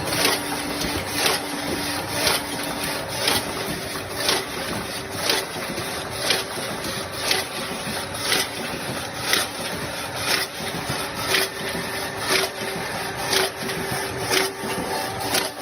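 Automatic tin can welding machine running in steady cycles, with a short stroke about once a second over a continuous hum.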